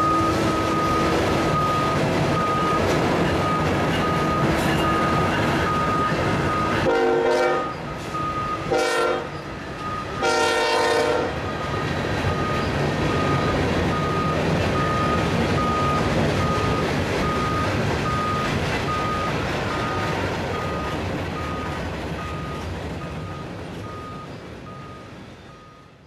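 Freight train cars rolling past with a steady rumble of wheels on rail. About seven seconds in, a locomotive horn sounds long, short, long. The rolling noise fades out near the end.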